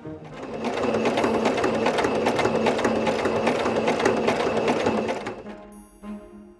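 Electric domestic sewing machine stitching along a fabric edge. It speeds up over the first second, runs at a fast, even stitching rhythm, and slows to a stop about five and a half seconds in.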